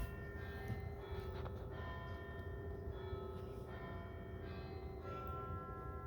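Large bells chiming, with several ringing tones struck one after another and overlapping as they ring on. A brief thump comes right at the start.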